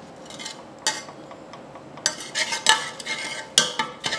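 Metal slotted spoon scraping and clinking against the inside of an aluminium pot while freshly steamed rice is fluffed and turned over. Scattered short knocks, coming thickest about two to three seconds in.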